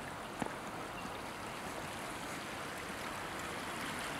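Steady rush of running water from a fountain pool, growing slightly louder; a single sharp click about half a second in.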